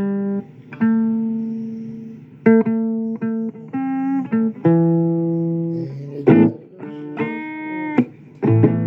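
Blues guitar playing an instrumental passage: single plucked notes and chords that ring and fade, with bent notes in the second half.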